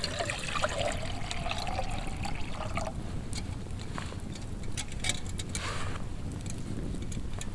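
Water poured from a titanium bottle into a titanium cup for about three seconds, while a wood campfire crackles.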